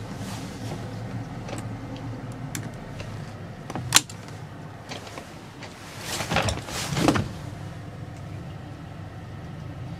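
Motorboat engine running steadily at low speed during a docking approach. A sharp click comes about four seconds in, and two short rushing noises come around six to seven seconds.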